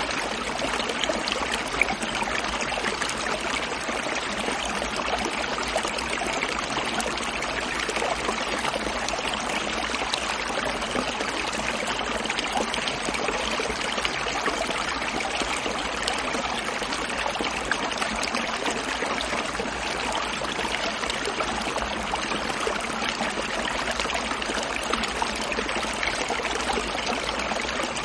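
A stream gurgling and trickling, its water noise steady and unbroken.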